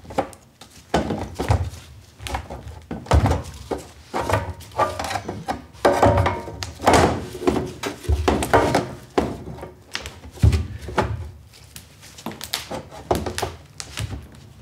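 Steel telescoping way cover sections of a CNC mill being worked together by hand as the last section, with its new wiper, is tilted into place: a string of irregular clunks and metallic knocks as the sheet-metal pieces bang against each other and the wooden workbench, some with a short ring.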